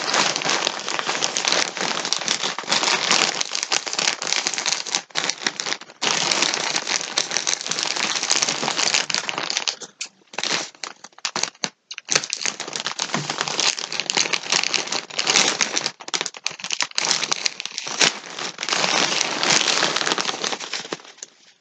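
Thin plastic packaging crinkling and rustling as a bagged pack of yarn skeins is handled. It goes on nearly continuously, with short breaks about ten and twelve seconds in.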